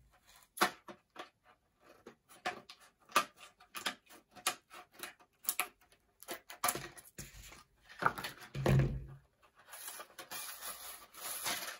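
Scissors snipping and stiff plastic blister packaging crackling as a pack of HO-scale model railroad track is cut open, with many short clicks and rustles. There is a louder dull knock about eight and a half seconds in, and a stretch of steady crinkling near the end.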